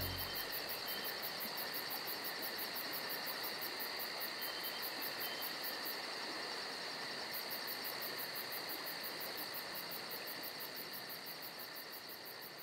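Crickets and other night insects chirping in a steady chorus, with an even rapid pulsing, fading out toward the end.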